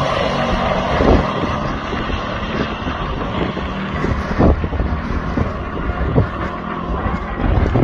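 Engines of two pickup trucks, a Toyota Tundra among them, running hard down a drag strip and pulling away into the distance. Wind buffets the microphone with low thumps.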